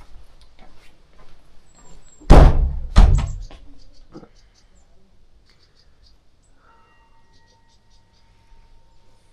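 A door thudding: two loud, heavy thunks under a second apart about two seconds in, then a lighter knock. After that it is quiet but for faint high ticks.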